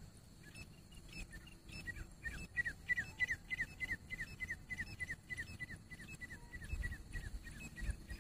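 Grey francolin calling: a fast series of short, falling whistled notes, about four a second, starting about two seconds in, with a faint low rumble underneath.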